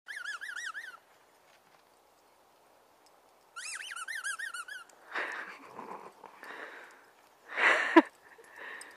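A high warbling whistle sounds twice, each about a second long, the pitch wavering up and down several times a second. It is followed by a few seconds of rustling and shuffling noises and a short, louder burst just before the end.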